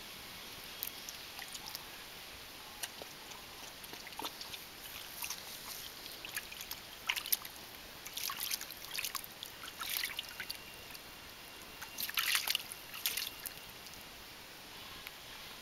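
A puppy stepping and pawing in shallow water in an inflatable paddling pool: irregular small splashes and sloshing, coming in clusters that grow busier and louder after the middle.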